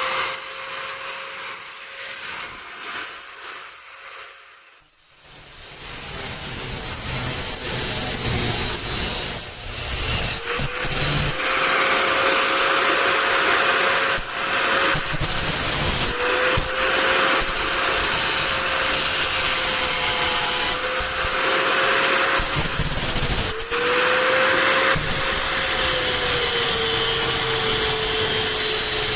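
Handheld electric power tool running with a steady motor whine over a loud hiss. It stops about five seconds in, then runs again louder, its whine dipping briefly a few times as the tool is loaded.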